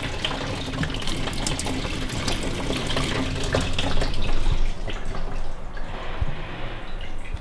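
A thin stream of water from a single-lever mixer tap running into a stainless steel sink, at the low pressure of a gravity-fed tank. The flow stops about two-thirds of the way through as the tap is turned off.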